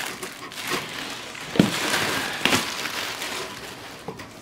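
Clear plastic wrapping crinkling and rustling as it is pulled open inside a cardboard box, with a couple of sharper crackles about one and a half and two and a half seconds in.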